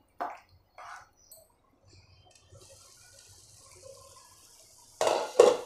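A spatula scraping and stirring a thick potato-and-pea curry in a steel pan, a few short wet strokes in the first second and a half, then a faint steady sizzle. Near the end the steel lid clatters twice against the pan, louder than the rest.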